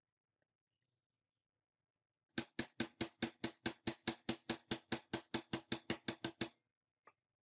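A rapid run of light, evenly spaced knocks, about five or six a second for some four seconds, as a hand-held block taps the motor into the yellow plastic housing of an old electric chainsaw, seating it in place. Each knock has a short ring.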